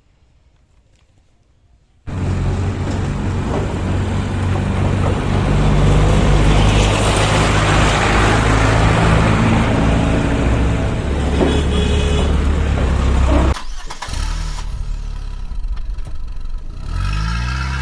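A vehicle engine running steadily, starting abruptly about two seconds in, dropping lower a little past the middle, and changing pitch again near the end.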